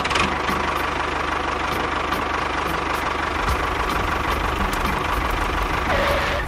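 Small motor of a home-built miniature construction machine running steadily, with a steady high whine over a fast, even buzz.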